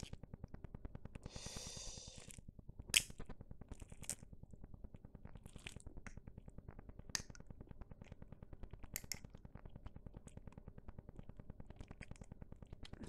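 Faint handling of small model-kit parts: scattered sharp clicks and a short scrape about two seconds in as a metal piece is worked into plastic parts, over a faint, fast, even pulsing in the background.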